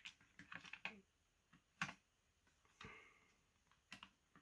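Faint, scattered clicks and taps of plastic parts as the Byrna HD air pistol's grey polymer frame is handled and fitted over its internals, the sharpest click about two seconds in, with a brief scuffing rub near the end.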